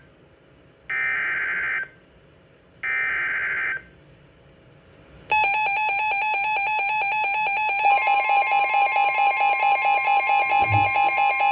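NOAA Weather Radio emergency alert coming through weather alert radios. First come the last two bursts of the SAME digital data header for a severe thunderstorm warning, each about a second long and a second apart. A few seconds later the alarm tone starts, and about eight seconds in a second tone joins it and the sound pulses about four times a second.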